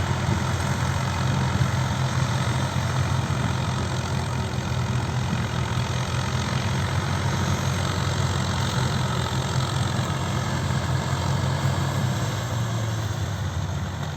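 Swaraj 744 tractor's three-cylinder diesel engine running steadily on a mini combine harvester, a low, even engine drone.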